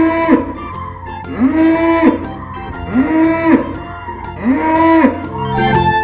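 Cow mooing four times, about a second and a half apart, each moo short and arching up then down in pitch, over light plucked-string background music.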